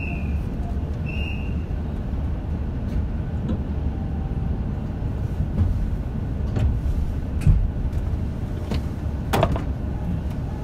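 Inside a JR Shikoku 8000 series limited express train: a steady low rumble with scattered clicks and knocks, the loudest knock about seven and a half seconds in. Two short high beeps about a second apart come right at the start.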